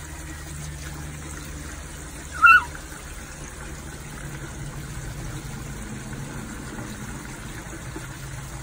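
Garden hose running a thin steady stream of water into a plastic jug, trickling and splashing. About two and a half seconds in, one brief high-pitched squeak slides down in pitch; it is the loudest moment.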